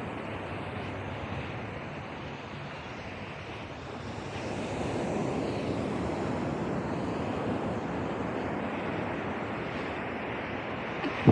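Ocean surf rushing and washing up the beach, a steady noise that swells about four seconds in, with wind buffeting the microphone. A single short thump right at the end.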